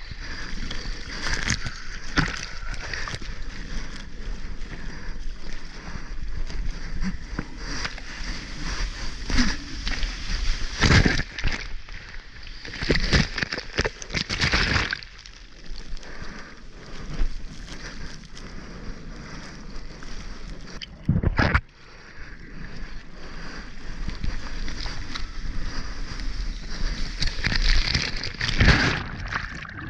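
Shorebreak waves and whitewater splashing and churning around a bodyboard at water level, with about four louder rushes of breaking foam washing over the camera.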